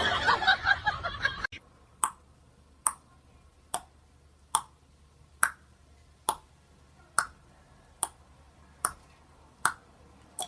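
Sharp single clicks repeating evenly, a little less than one a second, about a dozen in all, over a faint hum.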